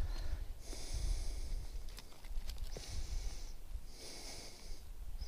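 Someone blowing in long, repeated breaths on smouldering tinder lit by a ferro rod, to coax it into flame; about four airy puffs roughly a second apart.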